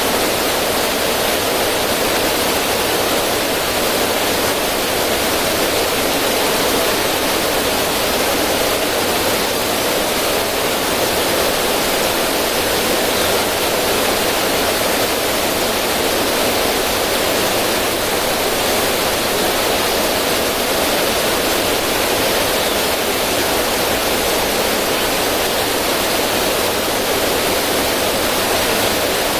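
River current running over rocks and splashing down a small waterfall: a steady, even rush of water.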